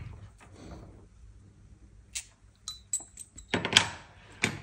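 Small metal parts and a wrench being handled on a work surface: a few light clicks and clinks with a brief metallic ring from about two seconds in, then a couple of louder knocks and rubs near the end.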